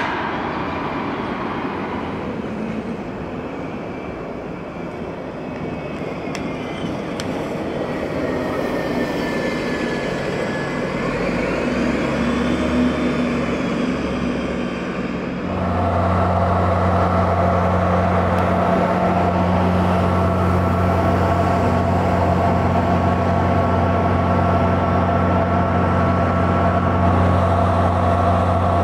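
City transit buses running. Engine noise with a whine that rises and falls a little under halfway in. From just past halfway a bus engine close by runs louder and steady, with a steady whine over it.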